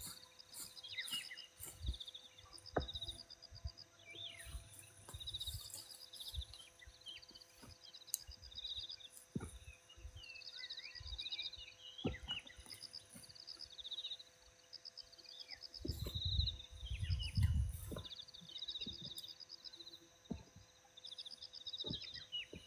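Birds chirping, with falling calls and a rapid pulsing trill, over scattered soft thumps and rustles as peanut plants are pulled up by hand. About 16 seconds in there is a louder stretch of low rumbling lasting about two seconds.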